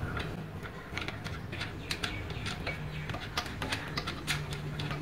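Irregular light metallic clicks and taps of a spanner working loose the bolts on a geyser's copper hot-water tank.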